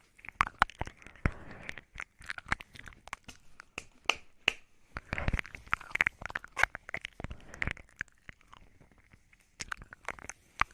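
Close-miked wet mouth sounds for ASMR 'ear eating': rapid, irregular lip smacks and tongue clicks made right at the microphone, thickest about halfway through.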